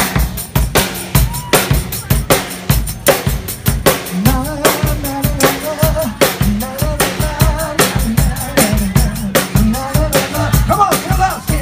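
Live band playing with a drum kit driving a steady beat of kick drum and snare hits, a bass line under it, and other pitched instruments above.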